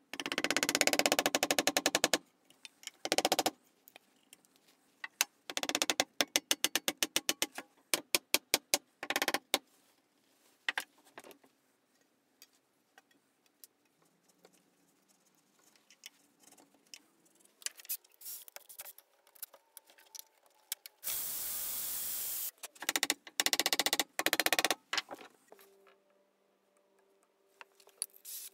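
Hand tools shaping a maple saw handle: bursts of quick scraping strokes of chisel and file on wood, with pauses between. A steady rushing noise lasts for about a second and a half about three-quarters of the way through.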